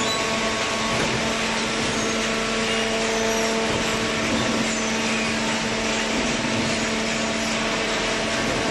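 Vertical cardboard baler's hydraulic power unit running: a steady, even hum with a constant tone over a wide noise.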